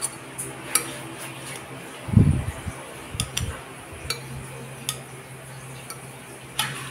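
Garlic cloves being dropped into a small glass jar: scattered light clinks and taps against the glass, with one duller knock about two seconds in, over a low steady hum.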